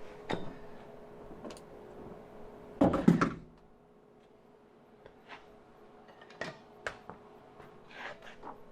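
Scattered knocks and clunks of things being handled, the loudest cluster about three seconds in, over a faint steady hum.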